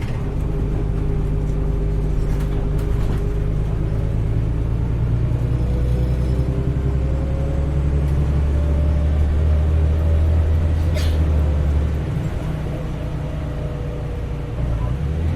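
Heuliez GX317 LPG city bus heard from on board: a low engine rumble with a whine that slowly climbs in pitch as the bus pulls away and gathers speed, then eases off about twelve seconds in. A short sharp click about eleven seconds in.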